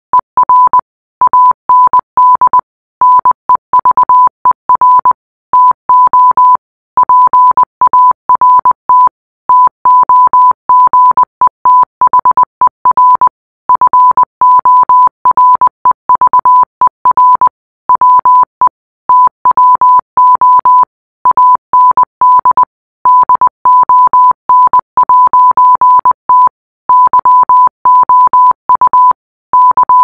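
Morse code played as a single steady beep tone, keyed on and off in rapid dots and dashes with short pauses between letters and words.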